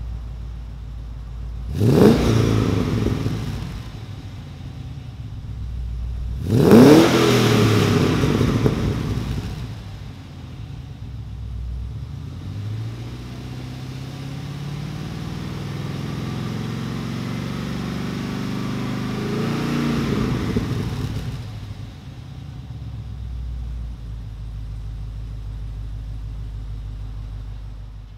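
Holden Commodore VF V8 exhaling through a Di Filippo engine-back exhaust (1 3/4" headers, 3" cats, 2 1/2" cat-back), idling and being revved while parked. Two sharp throttle blips come about two and seven seconds in, the second held briefly. Then the revs climb slowly for about seven seconds before dropping back to idle.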